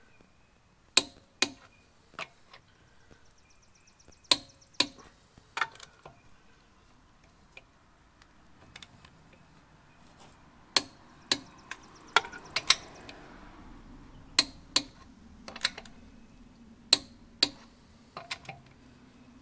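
Click-type torque wrench clicking as it reaches 140 foot-pounds on lug nut after lug nut, working around the wheel. Sharp metallic clicks, mostly in pairs about half a second apart, come every few seconds.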